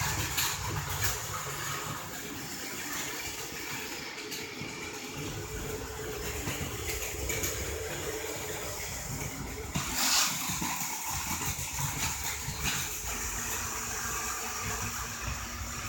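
Battery-powered Plarail toy train and Plaroad toy bus running on plastic track, their small electric motors giving a steady whirr with scattered clicks and rattles, one louder about ten seconds in.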